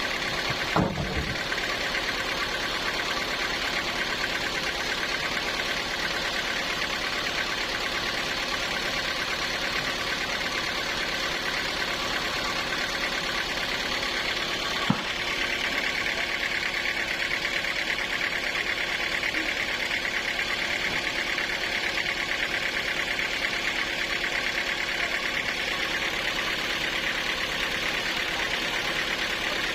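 Sawmill machinery engine running steadily, with a sharp knock about a second in and another about halfway. From about halfway a higher buzz joins the steady run.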